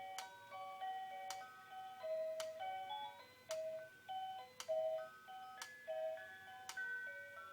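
Anton Schneider Q 6563/9 quartz cuckoo clock's music box playing a simple folk-style melody in clear, tinny notes, the tune it plays after the cuckoo call. A sharp click sounds about once a second through the tune.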